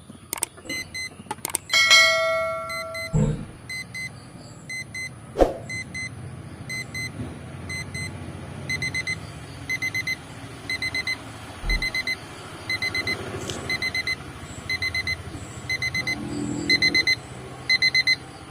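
Electronic alarm of an Orpat quartz alarm clock beeping: short bursts of rapid high beeps repeating about twice a second, faint at first and louder from about halfway through. It is being tested after repair and works properly. Before it starts there are a few sharp clicks and, about two seconds in, a metallic clink that rings briefly and is the loudest sound.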